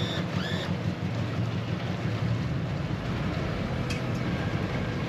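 Twin outboard motors on a centre-console boat running steadily at low speed as the boat powers away from the dock, a low even rumble. A few short high chirps sound near the start.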